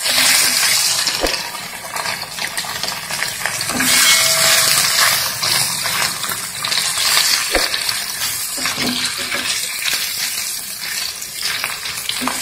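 Pieces of katla fish sizzling as they fry in hot mustard oil in a kadai, the hiss swelling and easing as a wooden spatula turns them. Two sharp knocks of the spatula against the pan, one about a second in and one near the middle.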